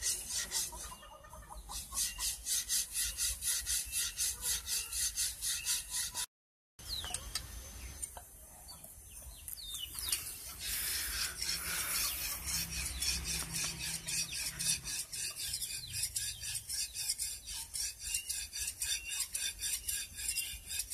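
Quick, rhythmic strokes of a hand file rasping over a flat metal blade, about three to four strokes a second. The filing pauses for a few seconds near the middle while a rooster crows, then picks up again.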